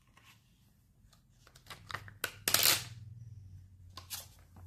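Protective plastic film being peeled off a new smartphone, crackling and crinkling in short bursts, loudest about two and a half seconds in.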